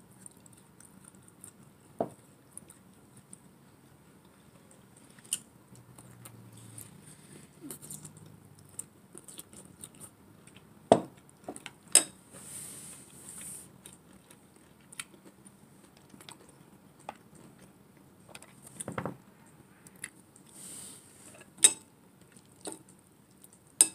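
Eating sounds close to the microphone: scattered clicks of cutlery against a bowl, with soft chewing and a few brief slurps of instant noodles.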